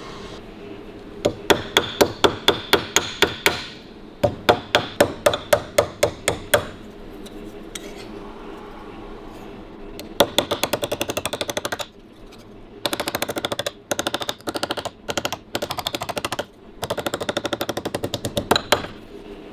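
Steel body hammer striking the edge of a sheet-steel patch held on a steel dolly, curling a radius into the repair piece. Two runs of even blows at about five a second, then from about ten seconds in faster runs of rapid taps with short pauses between them.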